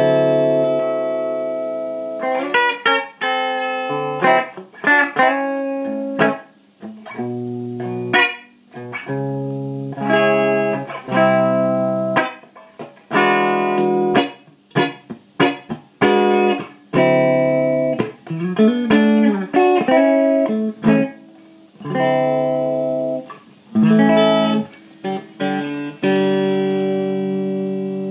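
Electric guitar, a Gibson ES-335, played through a Carlsbro TOP 100 amp head and a Marshall 4x12 cabinet. Picked chords and single notes are left to ring, with short breaks between phrases.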